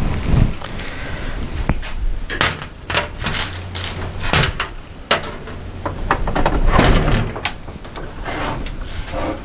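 A string of clicks, knocks and scraping handling noises as cables and a plug are pushed into a desktop PC and the case is moved about.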